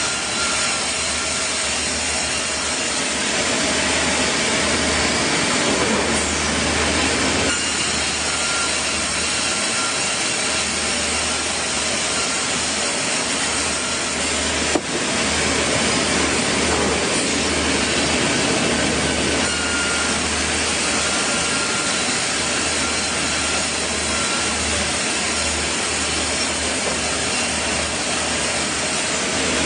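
Sawmill saw cutting through a log, a steady dense cutting noise over the constant low hum of the mill machinery, with a brief click about halfway through.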